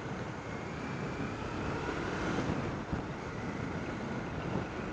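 1999 Honda CB500S parallel-twin engine running steadily as the motorcycle rides along at low speed, with wind noise on the helmet-camera microphone.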